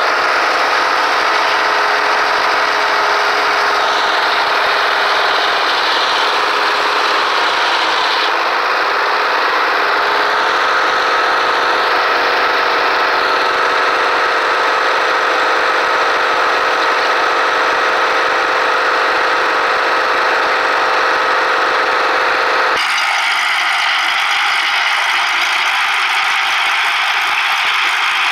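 Clark portable sawmill running: its engine and machinery make a loud, steady mechanical din with a steady whine through it. The sound changes abruptly near the end.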